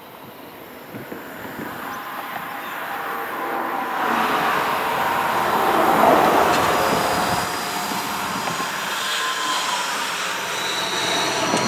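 Diesel-hauled freight train approaching, its engine and rail noise growing steadily louder over the first six seconds and then holding. A faint thin wheel squeal joins in near the end as the train rounds the curve.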